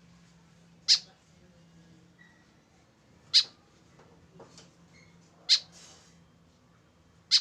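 White-breasted woodswallow giving short, sharp calls, four of them about two seconds apart.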